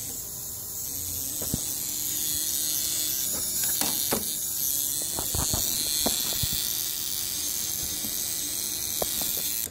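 Faulty electrical relay on a 2015 Polaris Sportsman 570 ATV, buzzing with a steady high hiss and giving off irregular sharp clicks. The owner takes it for a bad relay, one of the faults keeping the machine from starting.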